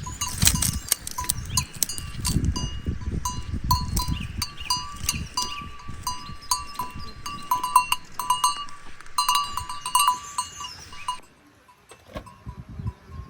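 Small metal bells clanking irregularly, several strikes a second, like bells on grazing goats or sheep, over a low rumble. The clanking cuts off suddenly about eleven seconds in.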